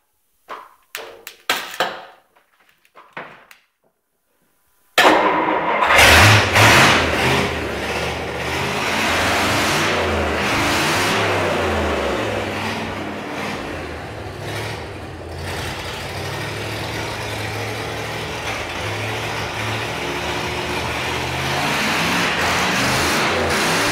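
Dodge Red Ram Hemi V8, on jumper cables, firing up abruptly about five seconds in after a few short noises, then running loudly with the revs rising and falling as it is blipped.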